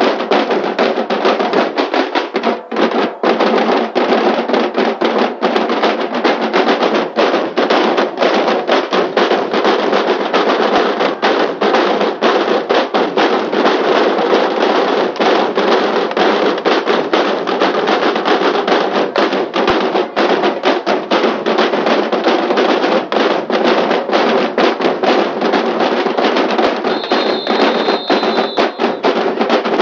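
A drum line of waist-hung marching drums playing a loud, fast, dense rhythm without a break. A high steady tone sounds briefly near the end.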